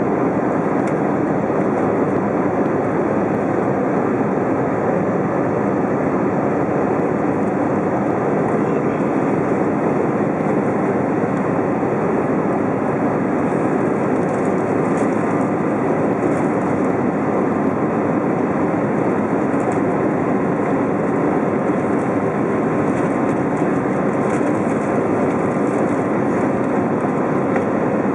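Steady cabin noise of a climbing Airbus A320: its jet engines and the rushing air, heard from inside the cabin.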